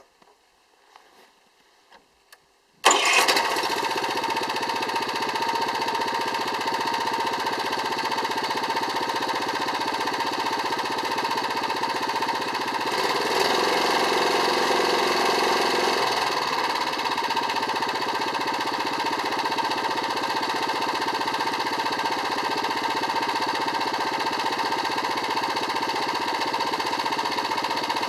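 Yanase 810HST snowblower engine firing up after a few faint clicks, catching about three seconds in and then running steadily, a little louder for a few seconds near the middle. This is its first start test after repairs to the starting and ignition system.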